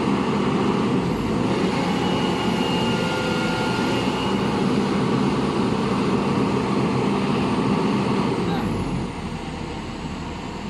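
Excavator's diesel engine running steadily with a low hum, a little quieter near the end.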